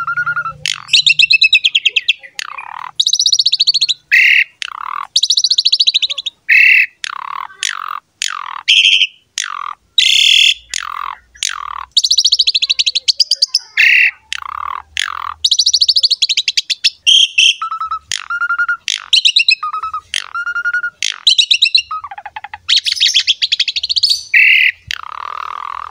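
Pied starling (jalak suren) singing loudly in full song: a fast, near-unbroken string of varied notes. It mixes clear whistles that slide up and down with harsh, buzzy rattling phrases, with only short pauses between them.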